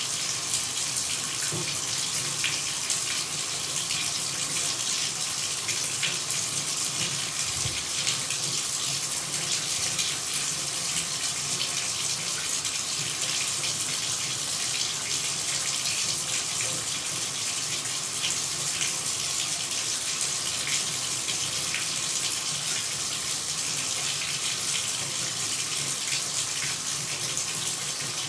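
Running water: a steady, even hiss with fine spattering through it.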